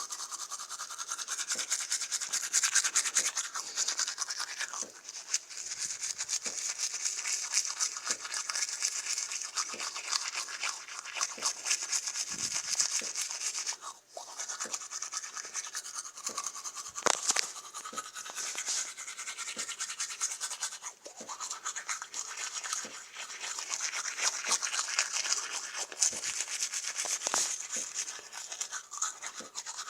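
Teeth being brushed with a toothbrush and toothpaste: rapid back-and-forth scrubbing strokes, continuous apart from a couple of brief pauses.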